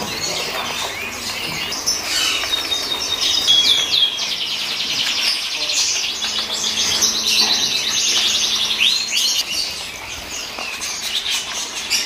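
A crowd of caged canaries chirping and singing all at once, with a long rapid trill through the middle.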